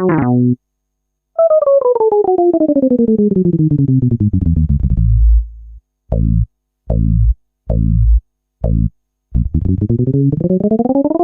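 Synthesized cartoon sound effects. A long buzzy tone slides steadily down in pitch over about four seconds, then four short falling bloops come about a second apart, and near the end a tone glides back up.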